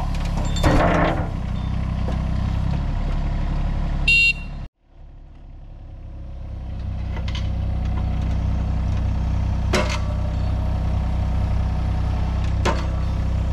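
Yanmar mini excavator's diesel engine running steadily while the machine holds a heavy grapple bucket raised, with a few sharp clanks. About four seconds in, a brief high tone sounds, then the sound drops out almost completely and fades back in.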